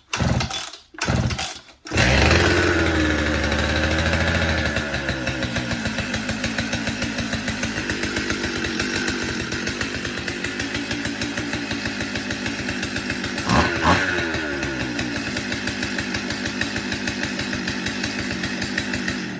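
Skilsaw 1632C chainsaw's two-stroke engine on full choke: a few quick pull-start tugs, then it catches about two seconds in and runs steadily for the first time since the repair, with one short rev past the middle. It cuts off at the end.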